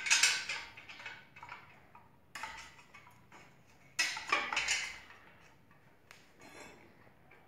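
Steel wire rod clinking and scraping against a manual steel stirrup bender as the rod is bent and shifted on it. Metallic clatters come at the start, again about two and a half seconds in, and in a longer cluster about four seconds in.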